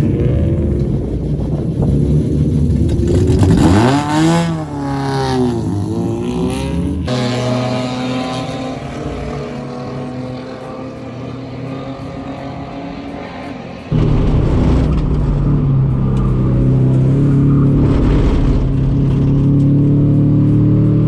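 Race-prepped Mazda Miata's four-cylinder engine heard from inside the car at full racing load. The revs climb and dip sharply through gear changes, then fall slowly, and it cuts abruptly to a steady, loud drone.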